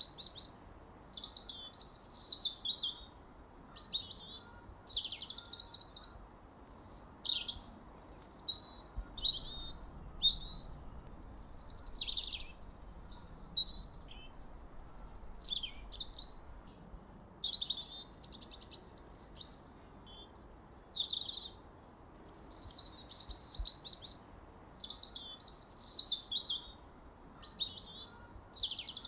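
Birdsong: a steady run of quick, varied, high-pitched chirping phrases, each about a second long, one after another with short pauses.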